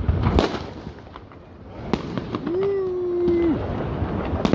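New Year's Eve fireworks and firecrackers going off in a street: sharp bangs about half a second in, around two seconds, and at the end, with crackling between. In the middle a steady held tone sounds for about a second.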